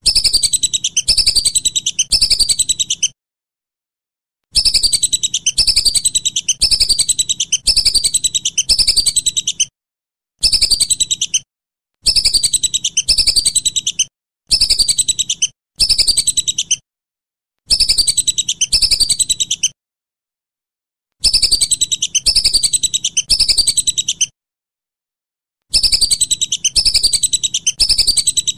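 Whistling ducks (belibis) calling: repeated high, falling whistled notes at about two a second, in bouts of one to five seconds that start and stop abruptly with dead silence between them.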